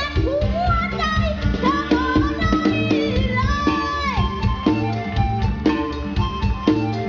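Music with a steady drum beat and bass, and a melody line that slides between notes about a second to four seconds in.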